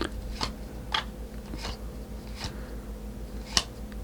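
Trading cards being flipped and slid off a stack one at a time: six short swishes and flicks at uneven spacing, the loudest near the end, over a steady low hum.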